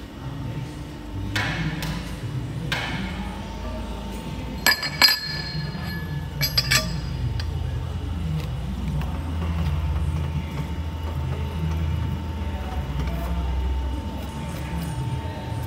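Steel cylinder parts clinking together in two short clusters with a brief metallic ring, as the gland and piston are fitted onto the chrome rod. Under them a steady low machine hum, growing stronger in the second half as the hydraulic press ram comes down on the rod end.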